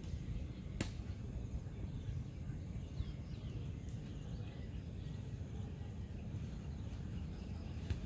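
Steady low outdoor rumble with a few faint, high, short bird chirps near the middle and a single sharp click about a second in.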